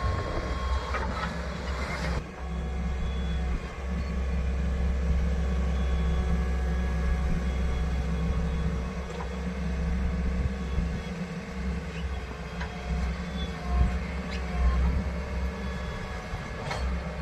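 Diesel engine of a JCB backhoe loader running as it works, a steady low rumble that swells and eases with load, with a few faint knocks near the start.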